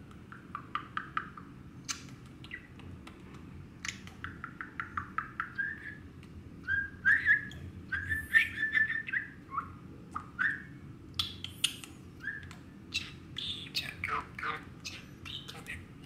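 Male budgerigar chattering to its reflection in a mirror: runs of quick clicking chirps mixed with short warbled notes, busiest in the middle.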